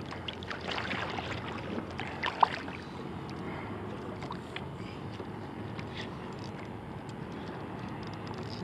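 Water lapping against a kayak's hull on the open sea: a steady wash with a few light splashes and knocks in the first couple of seconds.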